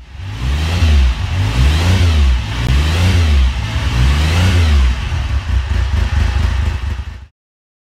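Motorcycle engine revved four times, its pitch rising and falling with each blip, then running more steadily before cutting off suddenly near the end.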